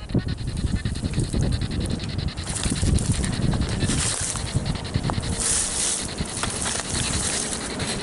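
Wind buffeting a handheld phone's microphone in an uneven rumble, with rustling and handling noise. Brief hissy rustles come about two and a half and five and a half seconds in.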